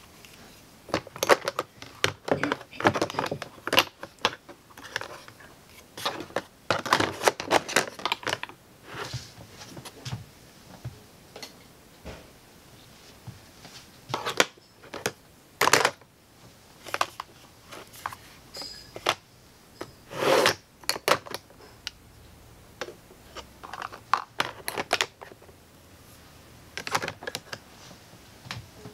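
Makeup bottles, tubes and compacts clicking and knocking against small plastic organizer trays in a drawer as they are handled and set down: scattered clusters of sharp taps with short gaps between.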